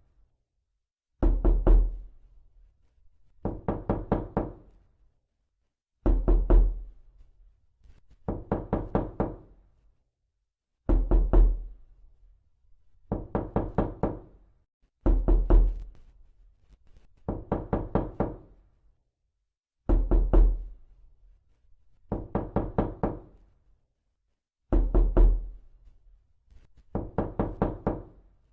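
Rapid knocking in short bursts of about four to six quick knocks. A burst comes roughly every two and a half seconds, and each knock rings a little.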